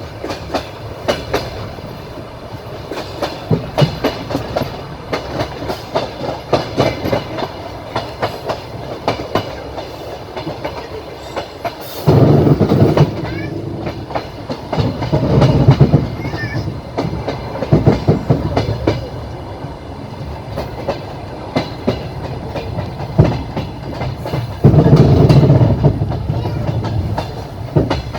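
Train wheels clattering over rail joints, heard from a moving passenger carriage at the window: a steady run of sharp clicks over a rumble. Louder rushing noise swells in several times, from about halfway on.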